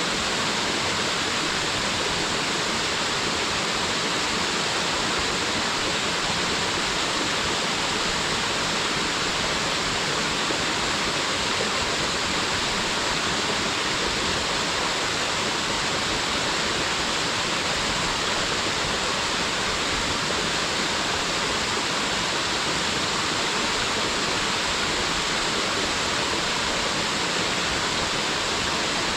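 Small waterfall pouring steadily, a constant rushing hiss of falling water with no change throughout.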